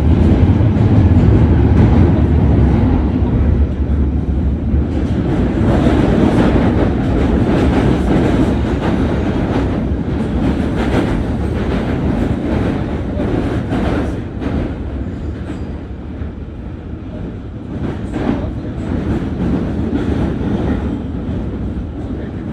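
Sound of a London Underground train running: a steady rumble with rail clicks through the middle, easing off somewhat in the last third.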